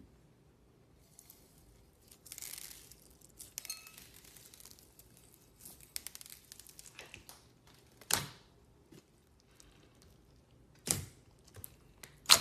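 Clear slime being handled, with crinkly crackling stretches and a few sharp pops; the two loudest pops come about eight and eleven seconds in.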